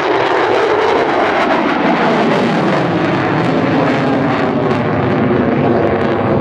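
F-22 Raptor's twin F119 afterburning turbofan engines, loud, rough and continuous jet noise from the fighter in its display, with a deeper rumble filling in about two seconds in.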